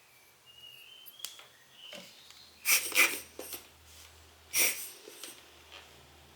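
Short puffs of air blown onto a camera lens element to clear dust off the glass: two quick puffs close together, then a third a moment later.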